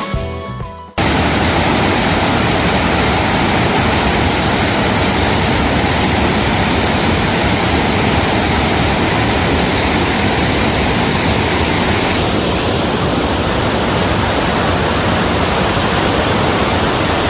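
Background music dies away within the first second. Then a loud, steady rush of falling water from a waterfall starts abruptly and continues unchanged.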